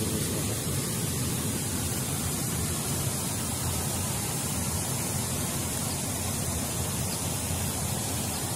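Steady rushing noise with no distinct events, heaviest and most fluttering in the low end, with an even hiss on top.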